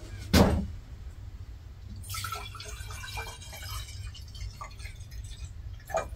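Water poured from a watering can into a glass jar, running and splashing for a few seconds. A single knock comes about half a second in.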